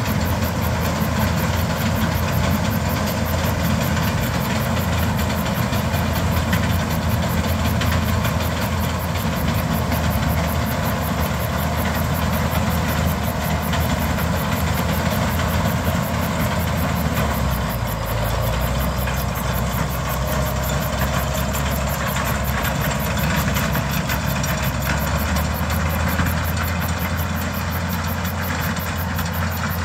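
Ford farm tractor engine running steadily as it pulls a hay mower-conditioner across a field. The engine note drops lower a little past halfway and the sound grows slightly quieter toward the end.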